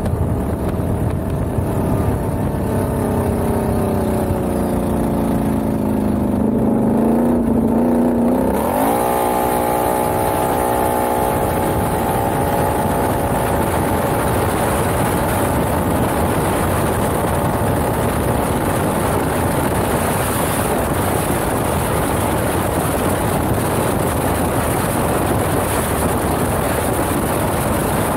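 Can-Am Outlander XMR ATV engine running, its pitch falling slowly as it slows over the first eight seconds, then revving up sharply and holding high revs. A steady rush of wind and gravel noise covers the rest as the quad slides along a dirt road.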